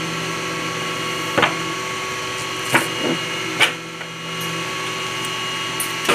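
Industrial paper guillotine cutter running with a steady motor hum, with a few sharp knocks as a stack of paper is pushed into place under the blade.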